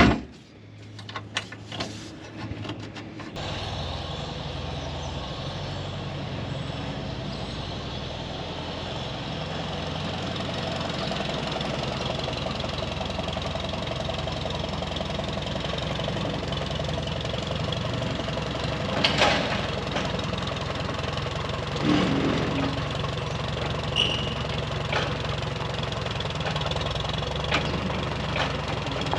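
A few metal clanks, then about three seconds in an IH combine's diesel engine is running and keeps on at a steady idle, with a couple of louder knocks later on.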